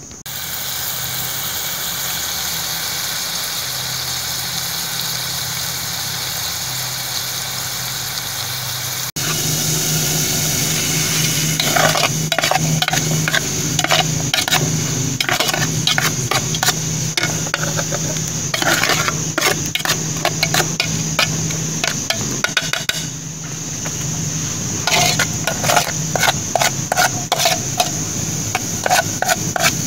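Knife cutting onion inside a small metal camping pot, the blade clicking and knocking against the pot in quick irregular runs, starting about twelve seconds in. A steady high insect buzz continues underneath.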